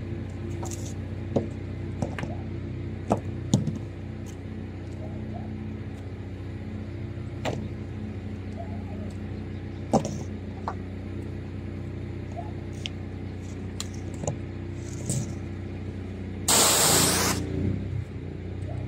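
Pressure washer running steadily with a low hum, with scattered light clicks and knocks. About three-quarters of the way through, a loud hiss lasts under a second.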